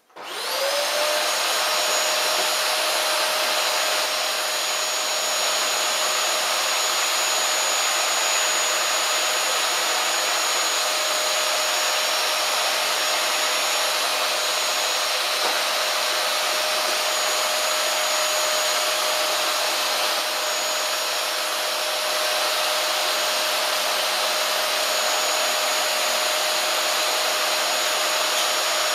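Dyson cylinder vacuum cleaner switched on: the motor spins up to a steady whine within about half a second, then runs steadily with a constant high pitch as the floor nozzle is pushed over a play mat.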